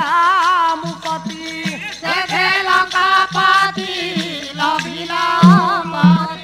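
Odia Pala devotional singing: a woman's voice and then a man's voice sing a melody with heavy vibrato, over a steady percussion accompaniment.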